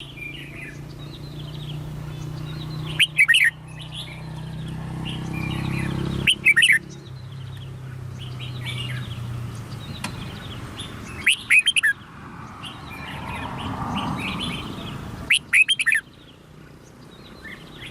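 A bird calling loudly in four short bursts of rapid, sharp chirps, a few seconds apart, over fainter background chirping. A low hum runs under the first half.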